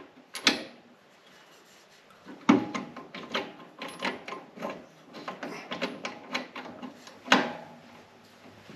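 Hand tools and shock-mount hardware being worked on the motorcycle's rear suspension: a run of irregular clicks and knocks, about two or three a second, with a heavier knock about two and a half seconds in and another near the end.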